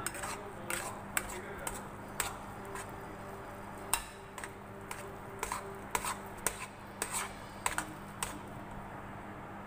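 Steel spatula scraping and clinking against a stainless steel kadhai while stirring a thick, cooking besan and coriander mixture, with irregular scrapes and taps about one or two a second. The mixture has cooked down until it is starting to leave the sides of the pan.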